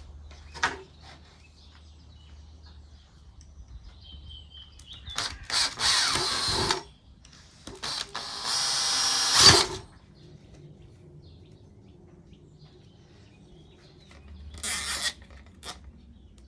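Makita cordless drill boring holes through the plastic rim of a cut-out IBC tank top: two bursts of about a second and a half each, the motor winding down after the second. Near the end, a short rasp of a cable tie being pulled through.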